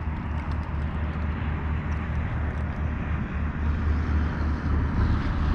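Steady low wind rumble buffeting the camera's microphone, with a few faint clicks in the first couple of seconds.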